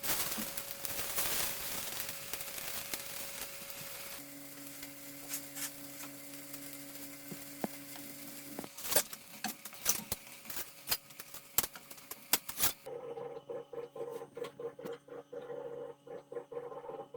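Pork frying in a pan, sizzling, while a utensil stirs it and clicks and scrapes against the pan. The high sizzle drops away near the end.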